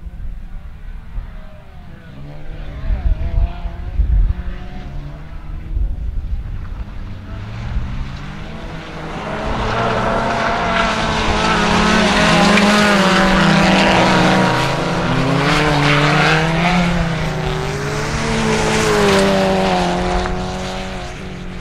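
Small 1400cc rallycross hatchbacks racing, their engines revving up and dropping back through gear changes. The engines are faint at first and grow loud from about eight seconds in as the cars come close. A few low thumps sound in the first few seconds.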